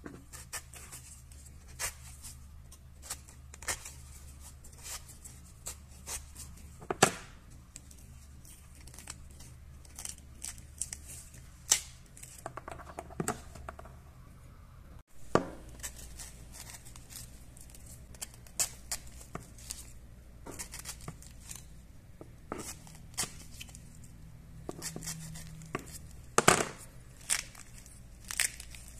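A green pomegranate being broken open by hand: irregular crackles, snaps and tearing as the rind and inner membranes split, with two louder cracks, one about seven seconds in and one near the end. A faint low hum runs underneath.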